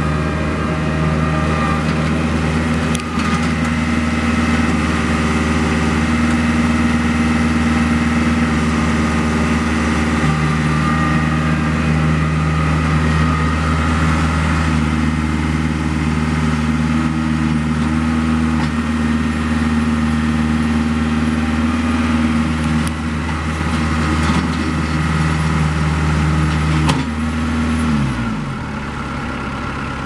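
Kubota B7800 compact tractor's three-cylinder diesel engine running steadily as the tractor is driven. Near the end the engine speed falls away.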